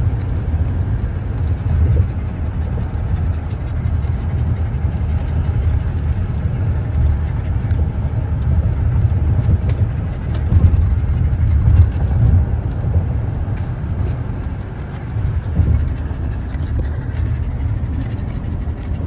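Road noise inside a moving car's cabin: a steady low rumble.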